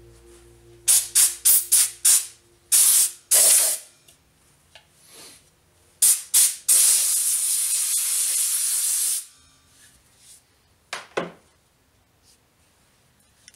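Aerosol spray can hissing in bursts as finish is sprayed onto a turned wooden box: a quick run of short puffs, a couple of half-second sprays, then one long spray of about two and a half seconds. A brief, fainter sound comes near the end.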